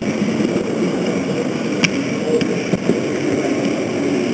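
Steady rumbling running noise of an H0-scale model train, picked up by a camera riding on it, with a sharp click about two seconds in and a fainter one just after.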